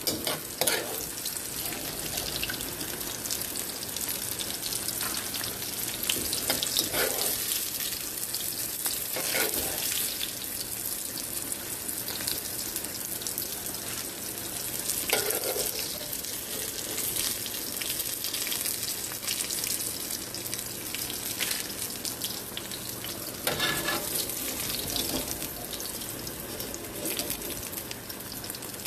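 Breaded squash pieces sizzling and crackling steadily in hot oil in an iron wok, with a few brief louder moments as a metal spoon stirs and lifts the pieces.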